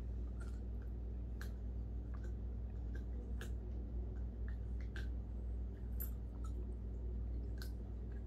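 Small dog chewing a green chew toy: irregular sharp clicks and crunches of teeth on the toy, about one a second, over a steady low hum.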